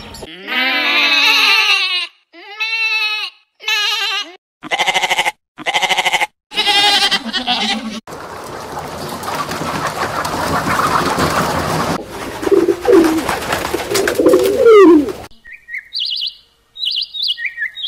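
A run of short animal calls cut one after another: several pitched cries of about a second each in the first half, then a noisier stretch with calls over it, and a few short high chirps near the end.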